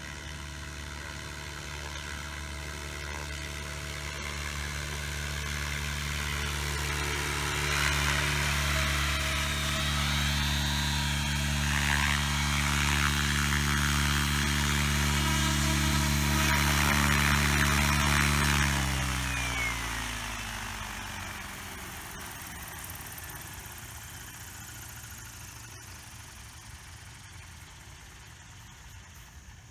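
Align T-Rex 700E electric RC helicopter's rotors and drive whining steadily as it hovers in close, getting louder. About two-thirds of the way through, the pitch slides down and fades as the rotor head spins down after landing.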